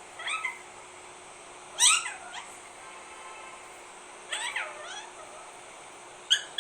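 Young Alexandrine parakeet calling: four short, squawky calls that bend in pitch, the second the loudest.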